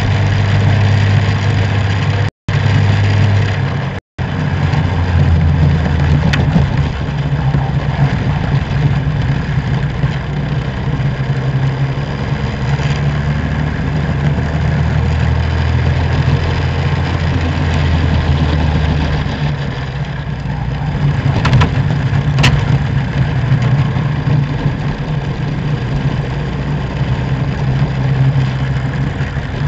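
Racing go-kart engines running hard at speed around the track, their pitch rising and falling with throttle and speed through the corners. The sound drops out completely twice, briefly, a few seconds in.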